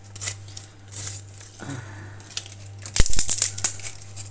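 Plastic packet of dried bay leaves crinkling and rustling as leaves are taken out of it by hand, with a cluster of sharp clicks and a low knock about three seconds in, over a steady low hum.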